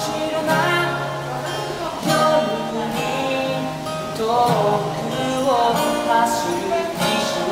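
Solo singer performing a song while strumming an acoustic guitar, with the voice carrying a sliding melody over the chords.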